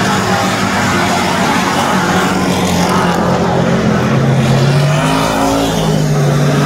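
Several dirt-track race car engines running at speed and loud, their pitches rising and falling as the cars go by.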